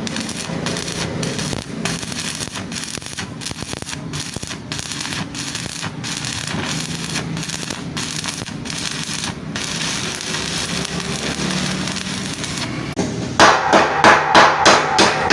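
Electric welding arc crackling steadily. About thirteen seconds in, a hammer starts striking metal in a quick, even rhythm, about three blows a second.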